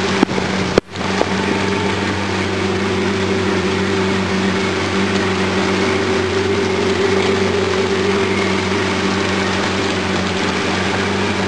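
Boat engine running steadily under way, a constant hum with a rushing noise of wind and water over it. The sound drops out briefly about a second in.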